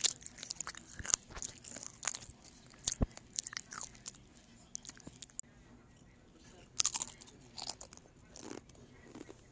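Irregular, crisp crunching and clicking close up, coming in uneven bursts with a quieter stretch in the middle and a cluster of crunches about seven seconds in.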